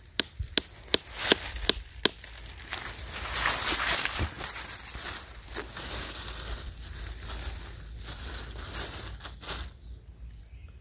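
A wooden trap stake being pounded into the ground: about six sharp knocks, roughly two or three a second, over the first two seconds. Then a rustling, crunching noise that swells around four seconds in and slowly dies away.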